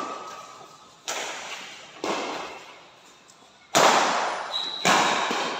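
Badminton rackets striking a shuttlecock in a fast doubles rally: four sharp hits about a second apart, the last two loudest, each echoing in a large hall.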